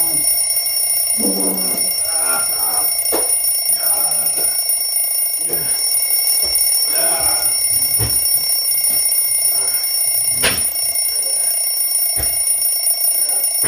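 An alarm clock ringing without a break, a steady high-pitched ring, with a few short knocks along the way.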